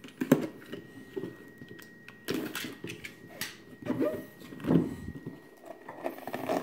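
Corrugated cardboard figure box being handled and opened by hand: scattered scrapes, rustles and light knocks of cardboard as the inner box slides out of its sleeve.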